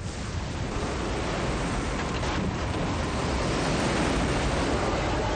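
Tornado wind: a steady, dense rush that grows a little louder toward the end.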